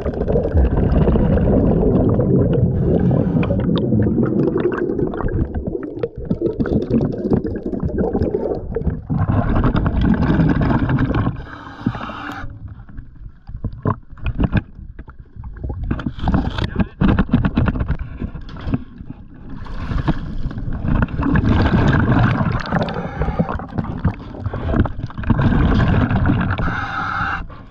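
Scuba diver's exhaled bubbles rumbling in repeated long bursts, heard muffled through the camera's underwater housing. Later comes water sloshing and splashing around the diver at the surface.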